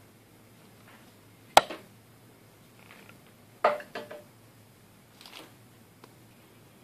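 Small clicks and knocks from soldering the power lead onto a subwoofer's amplifier board: one sharp click about one and a half seconds in, a few softer knocks just before four seconds and a faint rustle near five, over a low steady hum.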